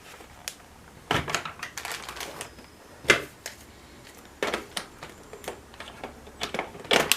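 Hard plastic parts of a toy helicopter being handled and fitted together: irregular clicks and taps, some in quick clusters.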